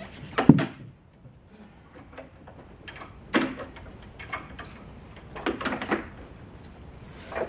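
Pilates reformer being set up: metal clacks and clunks as the footbar is raised and springs are hooked on, with a sharp clack about half a second in and further clusters of clicks around three and six seconds in.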